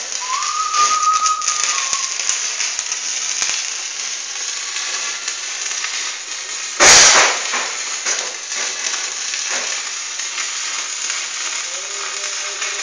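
Electric arc welding on a steel bumper: a steady, loud crackle and spatter from the arc. A single louder thump comes about seven seconds in.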